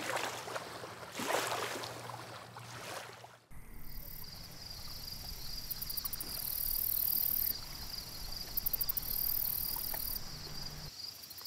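Soft rushing outdoor noise for the first few seconds. Then, after a sudden change about three and a half seconds in, insects chirring at dusk: a steady high buzz overlaid with repeated pulsed high trills.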